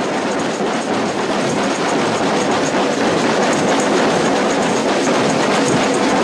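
Carnival samba percussion group playing: a loud, dense, steady clatter of drums and shakers.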